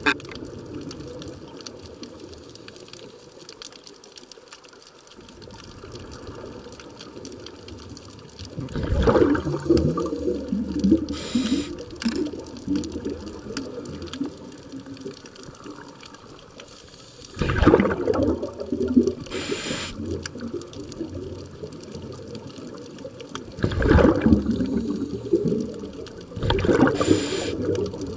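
Scuba regulator breathing, heard underwater: four loud bursts of exhaled bubbles, roughly six to eight seconds apart, with a short hiss between some of them.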